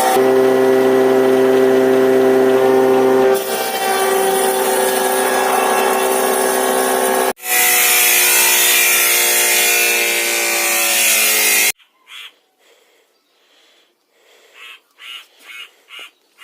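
Electric woodworking power tool running loud and steady, with abrupt breaks, then stopping suddenly about two-thirds of the way through. Near the end a bird calls repeatedly.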